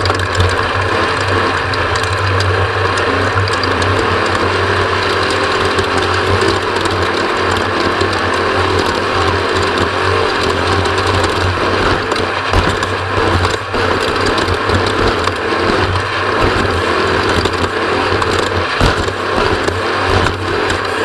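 Mountain bike ridden over rough dirt trail: a continuous fast clicking and rattling of the bike's drivetrain and frame over a steady low rumble.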